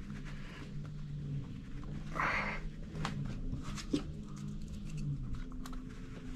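Faint clicks and taps of small tools working inside an open 2017 MacBook Pro, under a low steady hum, with a breath out about two seconds in.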